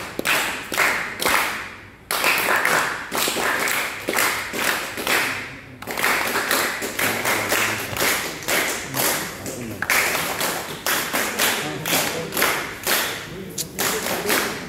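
A group of people clapping their hands, several claps a second, in runs of a few seconds broken by short pauses.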